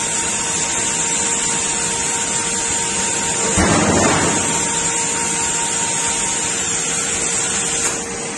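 Busellato Jet 5 CNC machining centre running with a steady high hiss and hum while it unloads its tool from the spindle. A little past the middle comes a louder burst of noise lasting about half a second, and the high hiss drops away near the end.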